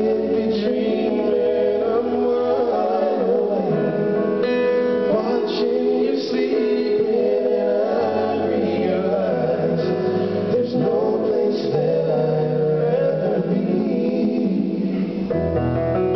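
Live R&B ballad: male voices singing in harmony over a Yamaha grand piano, amplified through the hall's sound system.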